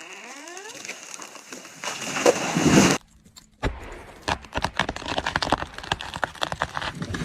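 A felled tree giving way: creaking and cracking wood builds to a loud crash, then cuts off suddenly. After a short pause comes a long run of sharp, irregular cracks and snaps.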